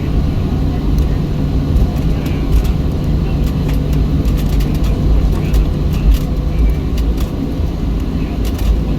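Cabin noise of a Boeing 737-700 taxiing: a steady low rumble from its CFM56 engines at taxi power and from rolling on the taxiway, with scattered light clicks and rattles.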